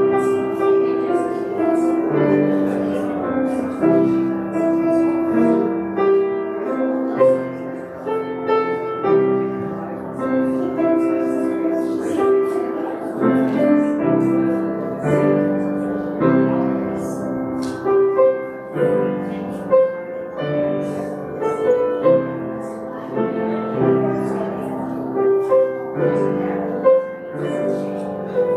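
Piano playing slow music with held chords.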